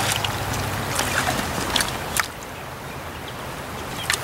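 Steady rush of a shallow stream, with a few brief splashes as a hooked brook trout thrashes at the surface.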